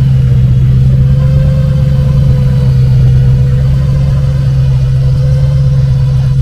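A car engine idling steadily close by, a loud, even low hum that neither revs nor changes.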